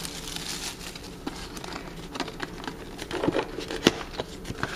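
Clear plastic shrink-wrap crinkling as it is pulled off a cardboard game box, with light clicks and taps from handling the box. A sharper knock comes about four seconds in.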